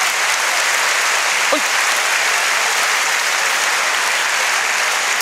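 Live audience applauding steadily, with one short falling call from the crowd about one and a half seconds in.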